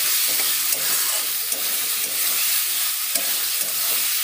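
Potato chunks frying in onion-spice masala in a metal kadai: a steady sizzle, with a metal spatula stirring and scraping them around the pan.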